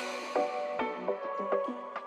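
Background music: a melody of separate pitched notes, several a second, with a sharp hit right at the start.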